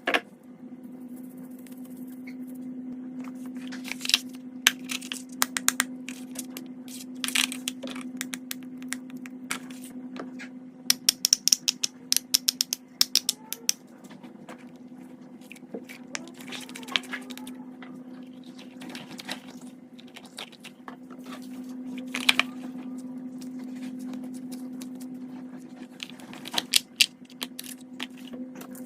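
Fidget toys being clicked and tapped: clusters of quick, sharp clicks much like keyboard typing, with single louder clicks now and then, over a steady low hum.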